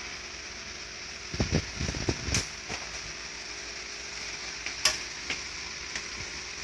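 Screwdriver and metal parts of a Riso duplicator being handled: a short cluster of low knocks about a second and a half in, then a few sharp clicks, over a steady hiss.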